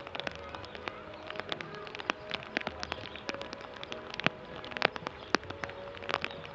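Rain falling, drops hitting a nearby surface in many irregular sharp ticks, with faint steady tones underneath.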